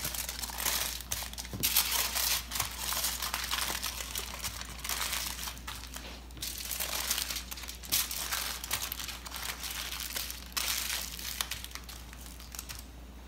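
Aluminum foil crinkling and crackling as hands fold and crimp it into packets, in irregular bursts that die away near the end.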